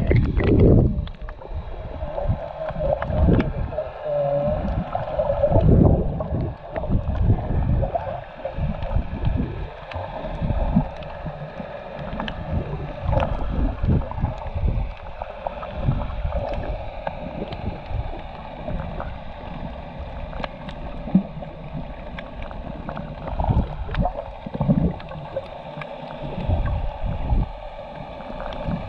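Muffled underwater water noise: water sloshing and rushing around a GoPro camera held underwater while snorkelling, in irregular low surges.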